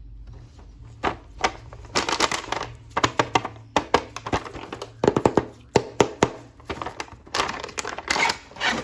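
Plastic toy packaging being handled and opened: crinkling rustles broken by many sharp cracks and clicks.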